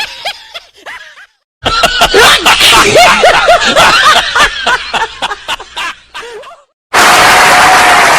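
Snickering laughter that trails off, a brief silence, then a longer stretch of rapid, giggling laughter. About seven seconds in, loud applause cuts in suddenly.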